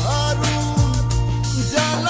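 Music: a song with a bending melody line over held bass notes and a beat.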